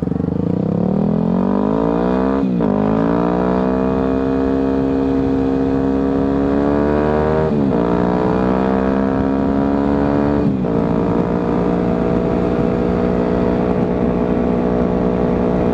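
Yamaha WR250F's single-cylinder four-stroke engine, with an FMF full exhaust, pulling up through the gears: the note climbs, drops sharply at each of three upshifts and climbs again, then holds level at a steady cruise after the last shift.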